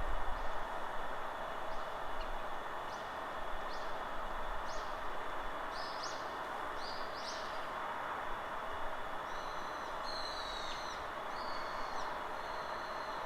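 Steady forest wind with songbirds calling over it: a run of short, quick rising chirps in the first half, then, from about nine seconds in, a bird repeating a slurred whistled phrase several times.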